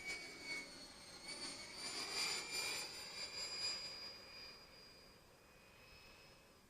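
145 mm electric ducted fan of a large RC jet whining as the model passes, loudest about two to three seconds in, then fading away.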